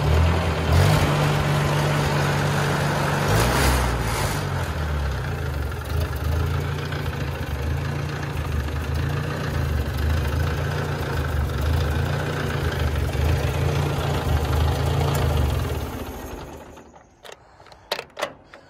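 1955 Ford 640 tractor's four-cylinder engine running at idle with a steady throb, briefly revved twice in the first few seconds. Near the end it is shut off and winds down to a stop, followed by a few clicks.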